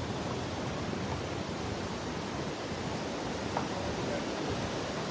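Steady outdoor rushing noise with no distinct events, apart from one faint tick about three and a half seconds in.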